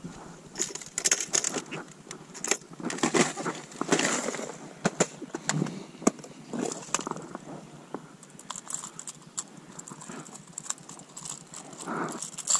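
Rummaging through plastic tackle boxes of fishing lures: irregular clicks, knocks and rattles of hard-bodied lures, hooks and plastic boxes being handled.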